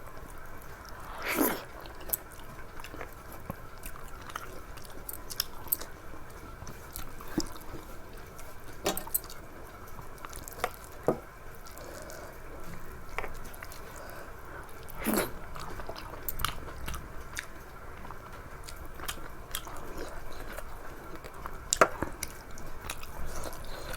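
A person chewing and eating close to the microphone: irregular soft mouth clicks and smacks, with a few louder clicks scattered through.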